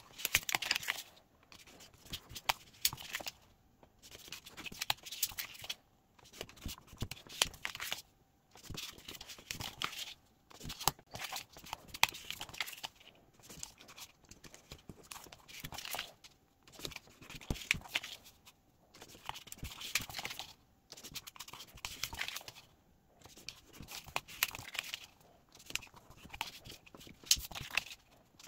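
Paper being folded and creased over an aluminium triangle ruler: rustling and crinkling with sharp scrapes as each flap is bent, pressed flat and the ruler edge run along the fold. It comes in short bouts every couple of seconds, with brief pauses between.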